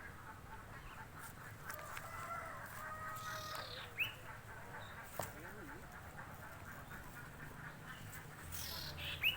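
Birds calling: two short, sharp rising chirps, one about four seconds in and one near the end, over faint background chatter.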